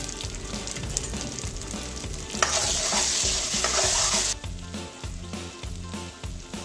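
Ground masala paste frying in hot oil in a metal kadai, sizzling as a spoon stirs and scrapes it. The sizzle flares loud about two and a half seconds in, lasts a couple of seconds, then settles back to a lower hiss.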